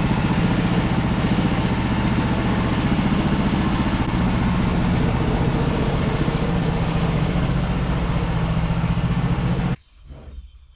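Woodland Mills HM126 band sawmill's gasoline engine running steadily while the mill works a pine log, cutting off suddenly near the end.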